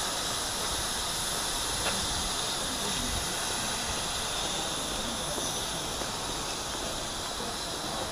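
Steam locomotive hissing steadily as steam escapes, with a faint click about two seconds in.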